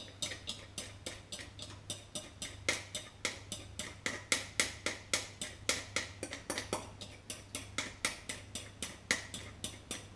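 A stirring utensil knocking rhythmically against the inside of a metal pot, about four clicks a second, while a milk-and-flour béchamel is stirred continuously over low heat as it thickens. A low steady hum runs underneath.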